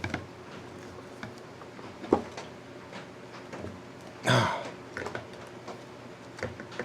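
Small clicks and scrapes of hand tools working a stuck screw out of a motorcycle engine's stator cover, with one sharp click about two seconds in. A little past the middle comes a short throaty noise.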